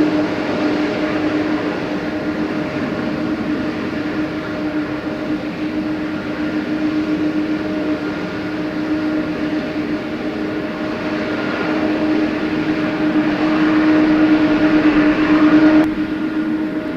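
Boeing 777-300 jet engines running steadily: a constant whine with a rushing roar beneath it. The sound changes abruptly about sixteen seconds in.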